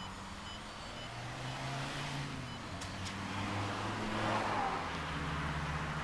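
Road traffic: a vehicle engine's low, steady hum, with a car passing about four to five seconds in. Faint short high beeps repeat about twice a second through the first half.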